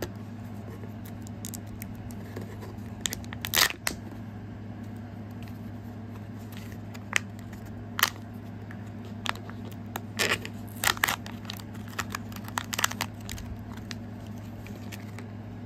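A Kinder Joy egg being unwrapped and opened by hand: the wrapper tearing and crinkling and the plastic parts clicking, in scattered short bursts, loudest about four seconds in and again around eleven to thirteen seconds in.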